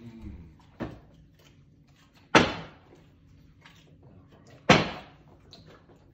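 A partly filled plastic water bottle being flipped and landing on a table: three sharp thumps about two seconds apart, the first lighter and the second and third loud.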